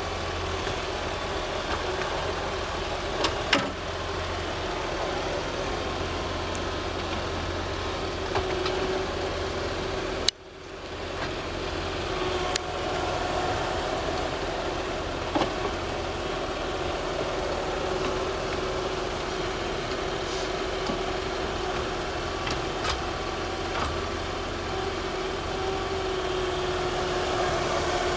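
Excavator engine running steadily, with a few sharp clanks. The sound cuts off abruptly about ten seconds in and picks up again.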